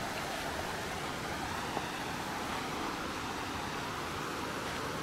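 Steady rushing of muddy stream water flowing through a channel it is eroding in a sand bank.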